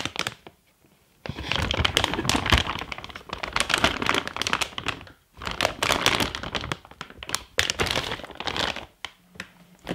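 Clear plastic parts bags crinkling and rustling as they are handled, with sharp clicks throughout. The sound comes in stretches broken by brief pauses about a second in, around five seconds in and near the end.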